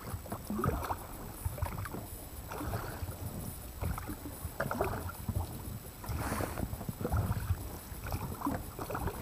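Small boat moving on water: irregular splashing and sloshing of water against the hull, surging roughly once a second.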